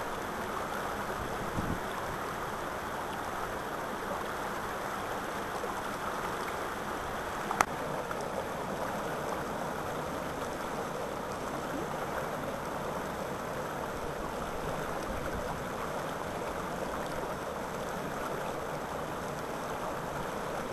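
Mountain stream rushing steadily over boulders and through small rapids. A single sharp click comes about seven and a half seconds in.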